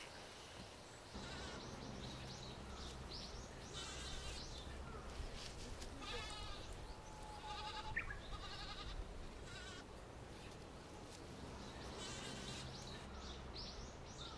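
A young goat's faint, wavering bleats several times over a low, steady outdoor rumble, with scattered high calls mixed in.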